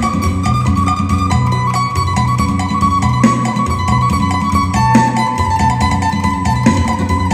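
Isan phin (a plucked lute) playing a quick lam sing melody of plucked notes over a held drone note, with a repeating low accompaniment underneath.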